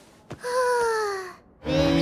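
A girl's voice-acted noise: a drawn-out vocal sound that slides down in pitch for about a second, then, after a brief pause near the end, a second, steadier drawn-out vocal sound begins.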